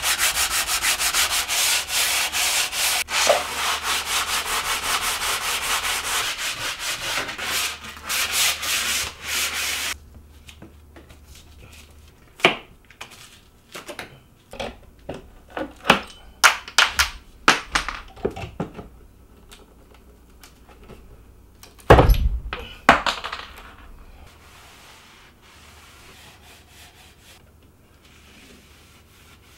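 Sandpaper rubbed by hand in fast, even back-and-forth strokes over a wooden cabinet frame, smoothing out old hinge marks before priming; the sanding stops abruptly about ten seconds in. Scattered knocks and clicks follow, with one heavy thump about two-thirds of the way through.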